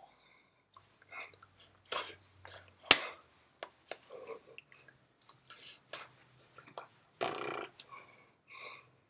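Incidental sounds of a person signing: scattered soft taps and clicks of hands meeting, and mouth and breath noises, with one sharp click about three seconds in and a longer breathy noise near the end.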